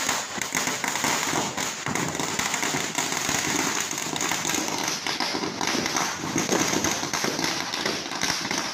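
Diwali firecrackers going off on a street, a long run of rapid, continuous cracks with no gaps.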